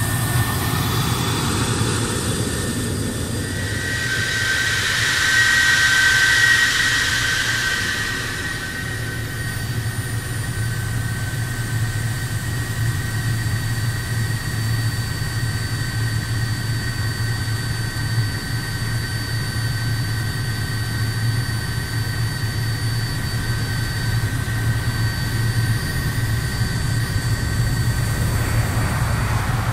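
MiG-31BM's twin Soloviev D-30F6 turbofan engines running as the interceptor taxis: a steady high whine over a low rumble, swelling to a louder rush between about four and eight seconds in.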